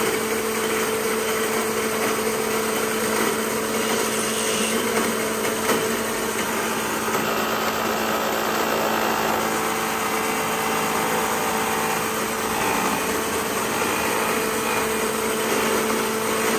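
Combination woodworking machine running with its surface planer and chain mortiser working at the same time: a steady motor hum with a constant low tone over an even cutting noise.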